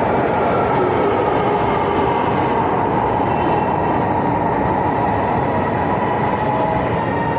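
Electric metro train of the Lahore Orange Line pulling into the station, a steady rush of wheel and running noise with a motor whine slowly falling in pitch as it slows.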